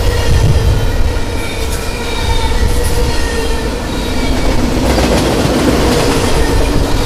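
Double-stack intermodal well cars of a freight train rolling past: a steady rumble of steel wheels on rail, with a thin, steady wheel squeal over it.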